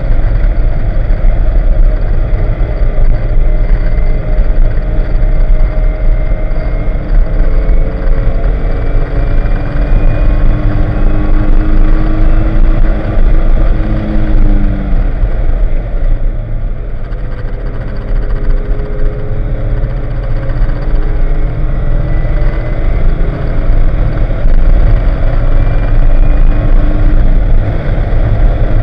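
A 1987 Porsche 944's naturally aspirated four-cylinder engine heard from inside the cabin on track. Its note climbs steadily, breaks off about halfway through and goes quieter for a couple of seconds, then climbs again. Heavy road and wind noise runs underneath throughout.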